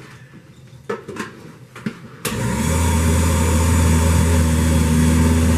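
A few light knocks, then about two seconds in a countertop blender motor switches on abruptly and runs steadily with a low hum, blending canned peeled tomatoes into sauce.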